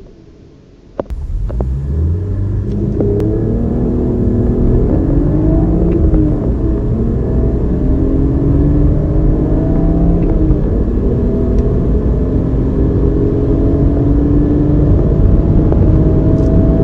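Car engine accelerating hard from a standstill: a quiet idle, then a sudden rise in level about a second in as the car launches. The engine note climbs through the gears and drops back at each of several upshifts, with one long climb near the end.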